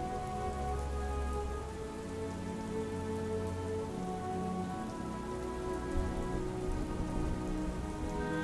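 Steady soft rain falling, with a slow ambient music score of long held notes underneath.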